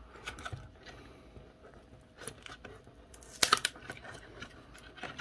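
Cardboard razor box being pried and torn open by gloved hands: faint scattered crackles and scrapes, with a brief burst of sharper crackling about three and a half seconds in.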